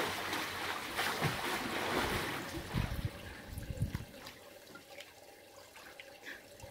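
Water splashing from a swimmer's strokes in a pool, dying down after about two and a half seconds. A few low thumps come around the middle.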